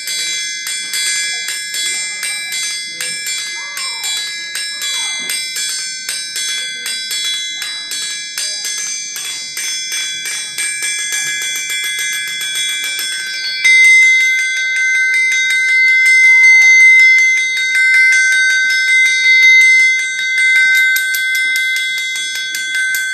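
A blacksmith's anvil struck with two hammers in a quick, steady rhythm, the blows ringing like bells and blending into a sustained high ring. About fourteen seconds in, the strikes get louder and the ringing settles onto different pitches.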